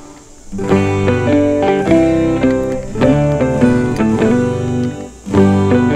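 Background music led by plucked guitar, a melody of held notes that comes in about half a second in after a brief lull.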